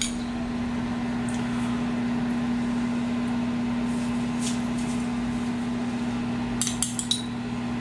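A steady low hum from a running kitchen appliance, with a few light clinks of a utensil against a dish as sauce is spread over the top of the food, the last ones close together near the end.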